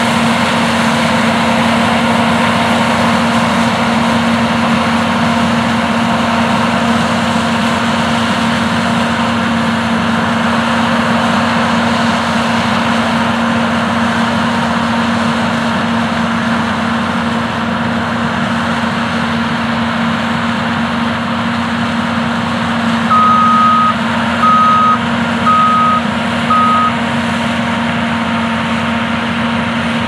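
A New Holland CR8090 combine harvesting soybeans and a New Holland T9.450 tractor pulling a grain cart, running steadily with a constant low drone. About three-quarters of the way through, four electronic warning beeps sound in a row, the first a little longer than the rest.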